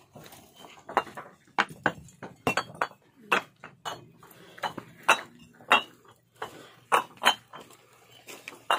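Fired clay bricks clinking sharply against one another as they are handled and stacked, about one clink a second at an irregular pace. The clear ring is the 'khadka' that marks the bricks as well fired.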